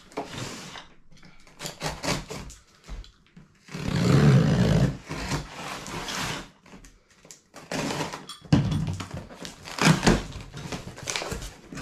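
A taped cardboard box being opened: a utility knife slitting the packing tape, then a long loud stretch of tape and cardboard being ripped apart, with a few knocks of the box against the table near the end.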